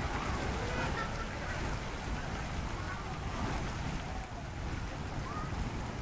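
Jets of a ground-level splash fountain spraying and splashing onto wet paving, with wind rumbling on the microphone. Children's voices are faint in the background.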